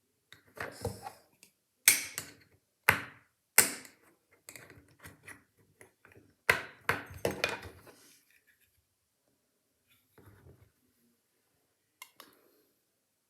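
Irregular sharp clicks and taps of metal scissors and a strong magnet knocking against a small putty pot while the magnet is pried out of the magnetic putty. About a dozen strikes come in the first eight seconds, then only a couple of faint ones.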